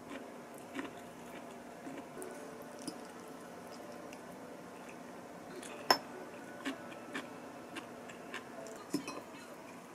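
A metal fork clinking and scraping on a ceramic pasta bowl as spaghetti is twirled and eaten: a scattering of light clinks, with a sharper one about six seconds in.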